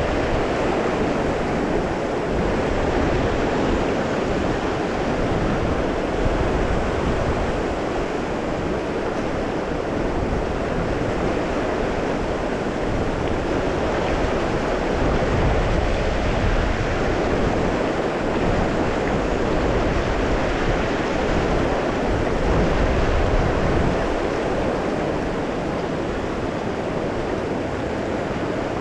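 Steady rushing of river water flowing past.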